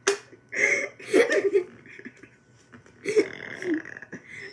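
A girl burping after drinking soda, with giggling laughter around it.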